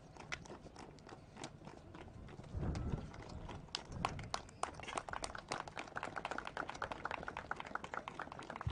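Bamboo silambam staffs knocking and clacking in a quick, irregular run of sharp wooden hits, denser and louder in the second half, with a dull thump about three seconds in.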